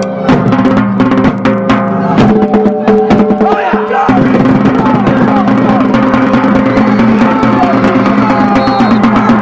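Loud music with drum beats and held notes; the drumming stops about four seconds in while the held notes carry on under voices.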